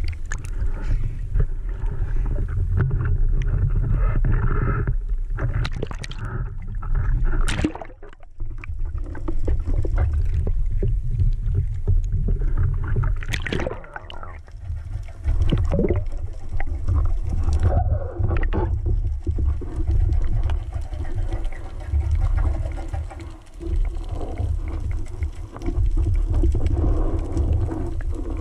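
Muffled underwater rumble picked up by an action camera in its housing as a spearfisher swims, with a few brief rising and falling squeaks.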